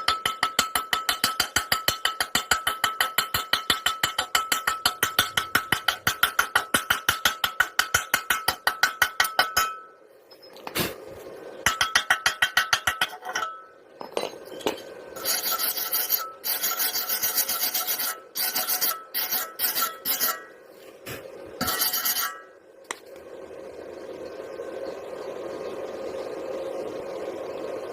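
Rapid, even rasping strokes, about eight a second for some ten seconds, then shorter irregular bursts of scraping with pauses between them.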